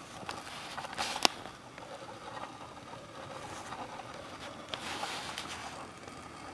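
Quiet rustling with one sharp click a little over a second in and a few more soft rustles near the five-second mark.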